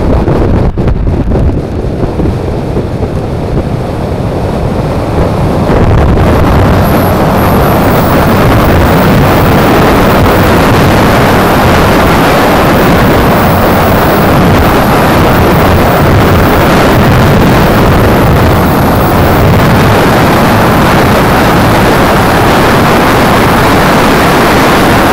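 Heavy wind buffeting on the microphone of a wing-mirror-mounted GoPro on a moving Suzuki Burgman 400 scooter. The noise gets louder and hissier about six seconds in and then holds steady.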